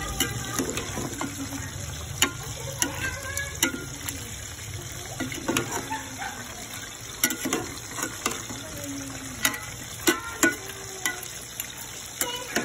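A metal spoon stirring chunks of chicken in a pot, clinking and scraping against the pot's side again and again at irregular intervals, some strikes ringing briefly. Under it, the chicken sizzles steadily in its cooking liquid.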